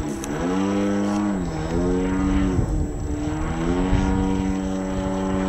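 RC aerobatic model airplane (Extreme Flight Edge 540T) running overhead, its engine and propeller note falling and rising in pitch several times before settling into a steady higher note about four seconds in.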